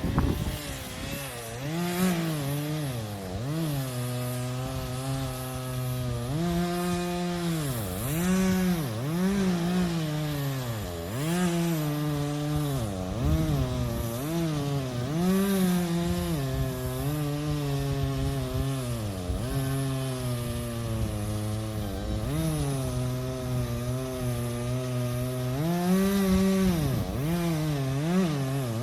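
Two-stroke chainsaw running and cutting into a dead pine tree. The engine speed dips and recovers every second or two as it bogs in the cut and the throttle is eased and reapplied.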